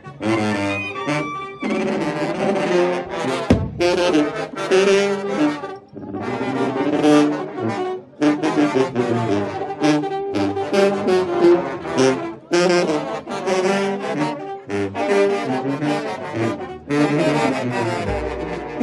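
Mexican village wind band (banda) playing a tune, with brass carrying the melody in phrases broken by short pauses.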